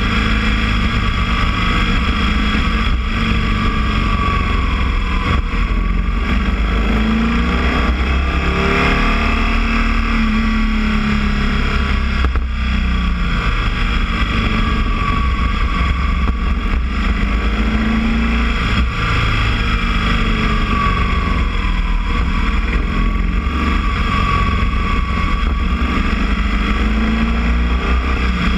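Boxer-twin motorcycle engine running while riding, its pitch rising and falling slowly several times with throttle changes over a heavy low rumble.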